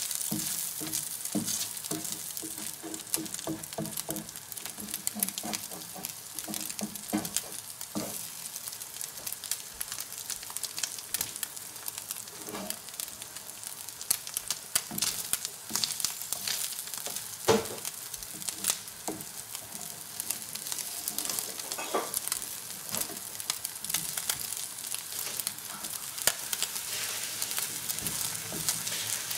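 Whitebait fritter of whitebait and egg sizzling in butter in a non-stick frying pan, with a steady high hiss. A plastic slotted spatula scrapes and taps against the pan again and again as the fritter is pushed into shape, with one sharper knock about halfway through.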